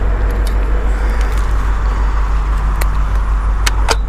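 Steady low outdoor rumble, with a few sharp clicks about three to four seconds in.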